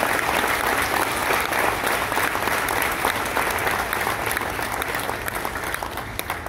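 Audience applauding, dense clapping that gradually dies down near the end.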